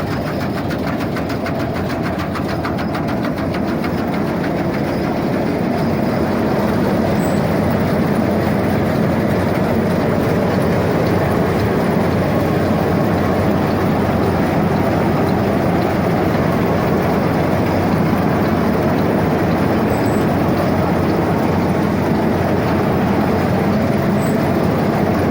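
New Holland 8070 combine harvester running: a loud, steady mechanical clatter and hum. It grows a little louder over the first few seconds, then holds steady.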